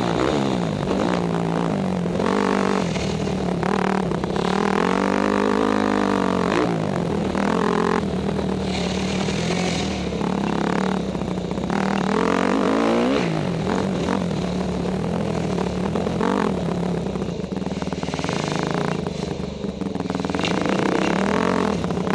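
Yamaha YZ250F motocross bike's 250 cc four-stroke single-cylinder engine under a rider, revving up and down over and over, its pitch rising on the throttle and falling off between sections of the dirt track.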